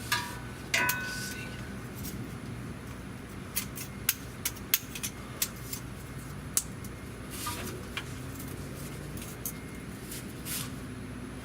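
Metal tools clinking while working on a truck's oil filter: a couple of ringing metal clinks at the start, then a scatter of sharp clicks and taps, over a steady low hum.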